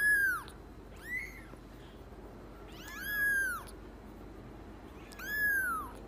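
A white long-haired kitten mewing: four high-pitched mews, each rising and then falling in pitch, the second one short and faint.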